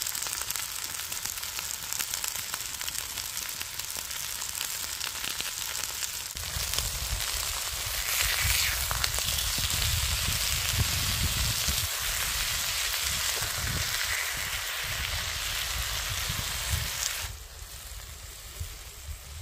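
Sirloin steaks sizzling as they fry in a pan over a wood-burning camp stove. The sizzle swells with a low rumble under it through the middle and falls back a couple of seconds before the end.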